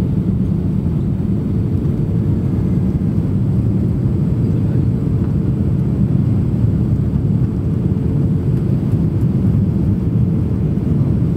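Steady low rumble of engines and rushing air inside the cabin of an Airbus A320 in flight, with a faint steady hum running through it.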